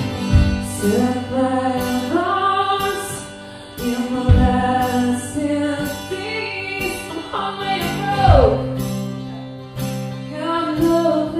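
Live acoustic song: a singer's voice over a strummed acoustic guitar, holding long notes, with one note sliding down about eight seconds in.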